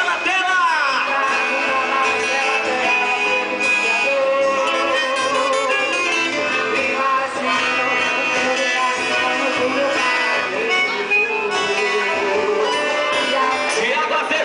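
Music with plucked strings and many held notes.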